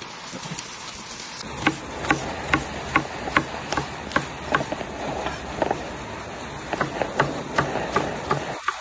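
Kitchen knife chopping green pepper on a wooden cutting board. Regular knocks of the blade on the board, about two to three a second, start about a second and a half in.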